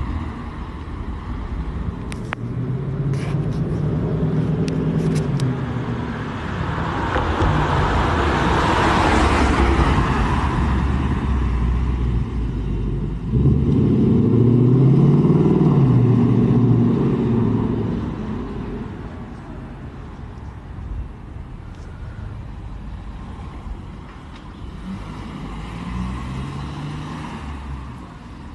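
Several cars driving past on a street one after another, tyre noise and engine notes swelling and fading as each goes by. The passes are loudest about a third of the way in and around the middle, with a fainter one near the end.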